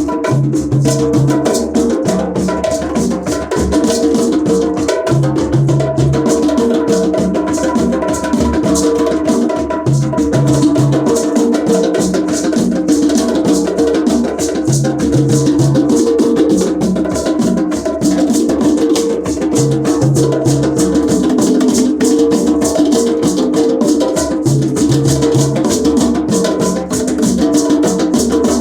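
Percussion music of drums, wood-block-like clicks and shakers in a steady groove. A short low figure of two or three notes comes back about every five seconds.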